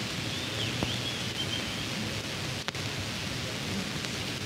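Steady hiss and crackle from the soundtrack of a 1933 British Pathé newsreel, with no voices standing out. There is a single click about a second in and a brief dropout near three seconds.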